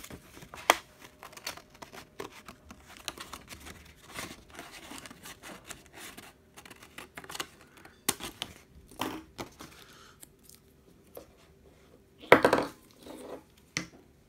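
Craft scissors snipping through red paper in short, irregular cuts, with paper rustling between them. A louder handling sound comes near the end.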